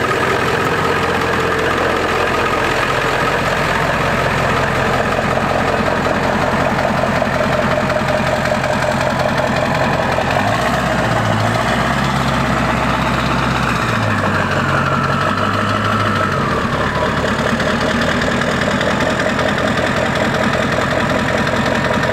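1997 Ford F-350's 7.3-litre Power Stroke turbo-diesel V8 running steadily at idle. Its low note shifts for several seconds around the middle, with a faint falling whine.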